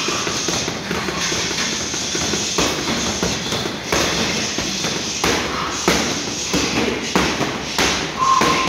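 Boxing gloves striking a hanging heavy punching bag in quick, uneven series of thuds, with a second bag being hit nearby.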